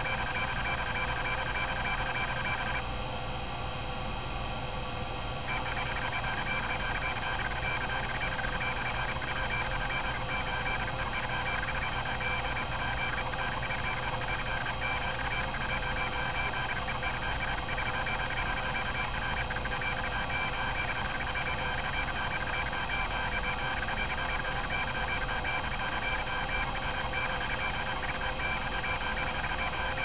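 Epson-Seiko HD-860 20 MB hard drive seeking under a test program: its stepper-driven rack-and-pinion head actuator makes a continuous tonal buzz over the spinning platters. The higher tones drop away briefly about three seconds in.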